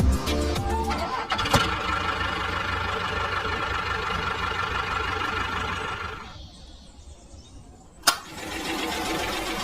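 A small motor running steadily, after a little music at the start. It falls away about six seconds in; a sharp click comes about two seconds later and the motor sound picks up again.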